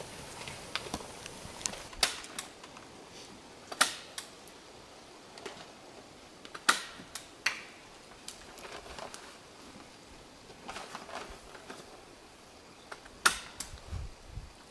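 Dry wood cracking and popping: a scattered run of sharp snaps at uneven intervals over a faint hiss, with a low thump near the end.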